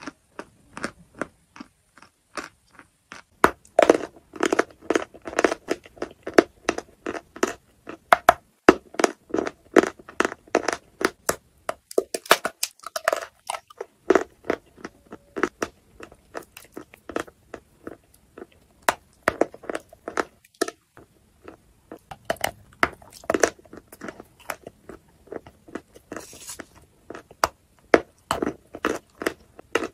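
Close-miked crunching and chewing of lump chalk as it is bitten and eaten: a quick run of sharp, dry crunches in clusters, with a brief pause about halfway.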